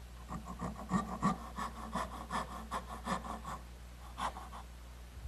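Small dovetail saw cutting wood by hand: a run of quick back-and-forth strokes, about three a second, starting a moment in and stopping after about three and a half seconds, with one last stroke a little later.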